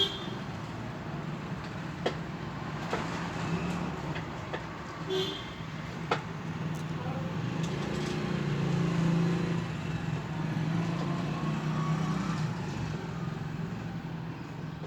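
Steady low rumble of passing road traffic that swells about eight seconds in, with a few sharp metallic clicks as a mounting leg and its nuts are fitted onto a washing machine motor.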